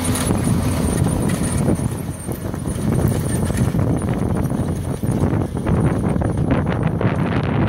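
Tractor-drawn seed drill working across a field: a low rumble with a steady clatter of knocks and rattles from the drill's discs and wheels. The tractor engine's hum fades out just after the start.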